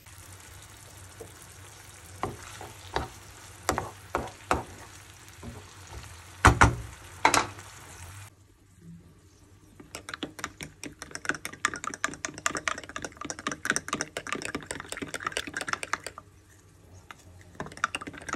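Chopped peppers and tomatoes sizzling in olive oil in a frying pan, with a few sharp knocks that are loudest around the middle. Then a fork whisks runny chickpea-flour batter in a bowl: a long run of quick clicks against the bowl, easing to a few taps near the end.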